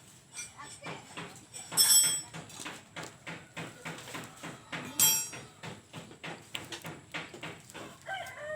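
Hands working on motorcycle wiring at the ignition switch: a run of small clicks and rustles, with two sharper, louder sounds about two and five seconds in.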